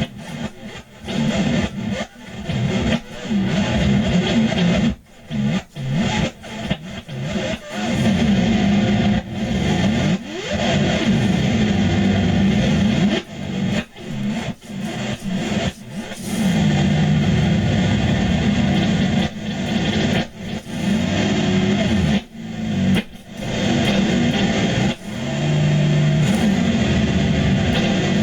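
Twelve-string guitar played as free noise improvisation: a dense, noisy wash of string sound that keeps breaking off in short sudden gaps, with a sliding pitch about ten seconds in.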